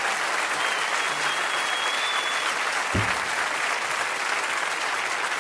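Large audience clapping steadily, with a single high held tone for about two seconds near the start and a brief low thump about three seconds in.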